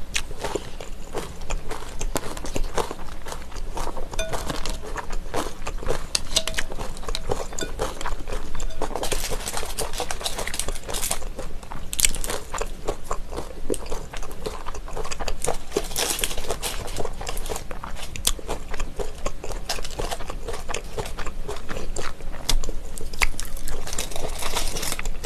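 Close-miked eating sounds: crunchy chewing, with dense small clicks of chopsticks stirring and picking at sauce-dressed shredded vegetables in a glass bowl.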